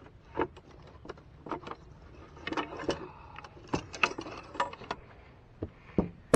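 Irregular handling noise: clicks, knocks and rustling as a caught bass is held and a wooden fish-measuring board is picked up. The loudest is a sharp knock with a brief ring near the end.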